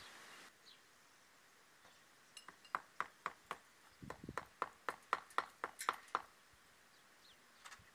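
A run of light clinking taps of a hand tool on stone, about three or four a second for some four seconds, with a duller knock among them.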